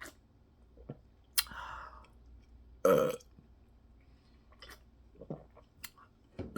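A short, loud human burp about three seconds in, between the wet clicks and smacks of open-mouth chewing.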